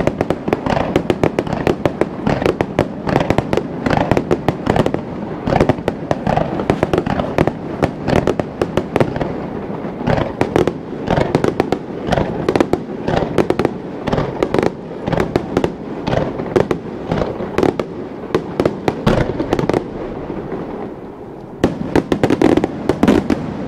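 Fireworks display: a rapid, near-continuous barrage of bangs and crackling shell bursts, easing off briefly about twenty seconds in before another quick volley.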